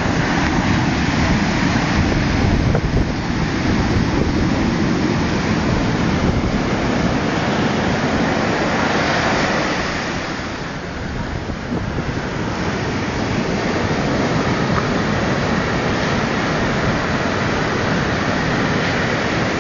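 Surf breaking and washing up a sandy beach in a steady wash of noise, with wind buffeting the microphone.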